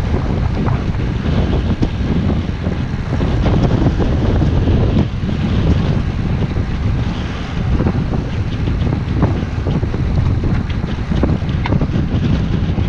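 Wind buffeting the microphone of a camera carried by a cyclist riding a road bike: a loud, steady low rumble, with a few light ticks.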